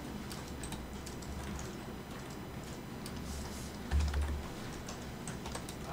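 Scattered light clicks of a computer keyboard and mouse over a steady low hum, with a low thump about four seconds in.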